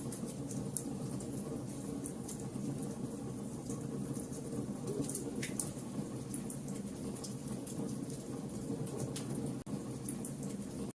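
Fire burning with a steady low rumble and frequent irregular sharp crackles and pops.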